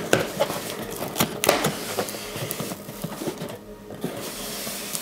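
Cardboard box being pulled open by hand: packing tape tearing and cardboard flaps crackling in a run of irregular cracks and clicks, with kraft packing paper rustling as the box comes open.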